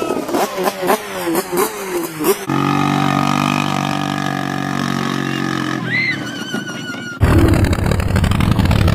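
Quad (ATV) engines in three quick cuts. First an engine revving up and down unevenly with knocks. Then a small quad engine running steadily. About seven seconds in, a much louder, low quad engine cuts in at full throttle, climbing a steep dirt hill.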